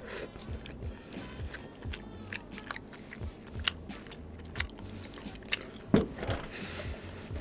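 Close-miked chewing of chewy tteokbokki rice cakes in sauce: wet smacking and sharp clicking mouth sounds, with one louder wet mouth sound about six seconds in.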